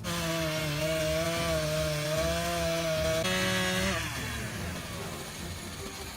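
Chainsaw engine running at high revs, holding a steady pitch that steps up a little after three seconds, then dying away about four seconds in.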